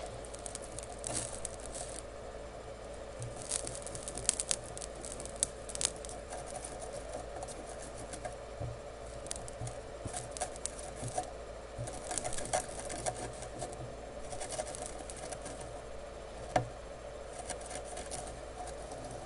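Soft crackling and sizzling in short bursts of about a second, repeated many times, as a soldering iron works flux and solder on the pins of an SMD memory chip. A steady hum runs underneath.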